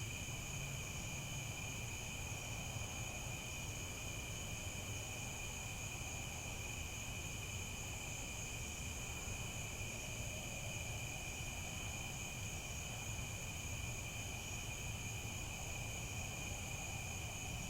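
Crickets chirping in a dense, continuous chorus, a steady high-pitched trilling, over a faint low background rumble.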